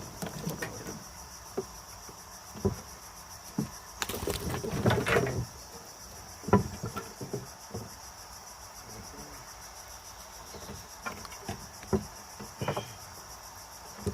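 Steady high-pitched insect chirring, crickets, with scattered knocks and thumps. There is a louder rustling stretch about four to five seconds in and a sharp knock soon after.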